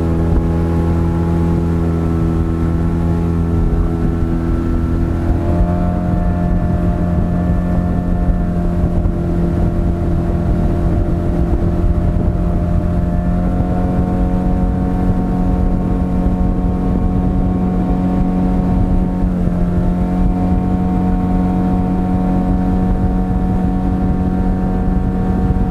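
15 hp outboard motor running steadily under way, with water and wind noise beneath. Its pitch steps up twice, about five seconds in and again around thirteen seconds, and dips briefly near nineteen seconds before coming back up.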